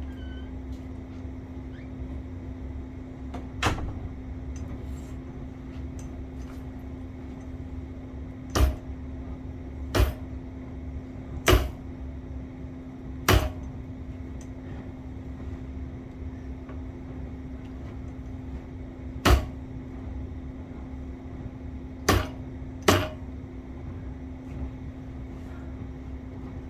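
About eight sharp knocks at irregular intervals as a bar end plug is driven into the end of a BMX handlebar. The knocks come in ones and a close pair, and the two hardest fall a little before halfway and in the second half.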